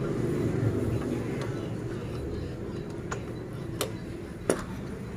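A few light, sharp metallic clicks of hand tools and parts being handled at the open clutch side of a motorcycle engine, spaced a second or so apart, over a low steady background rumble.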